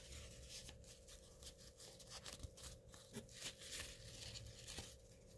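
Faint rustling and crinkling of a thin paper napkin being handled and folded: a string of soft crackles over a faint steady hum.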